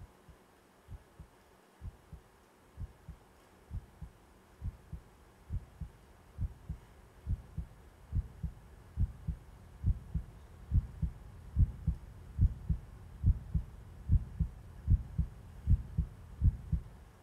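Heartbeat sound effect: paired low thumps, just under one beat a second, growing steadily louder and then cutting off suddenly at the end.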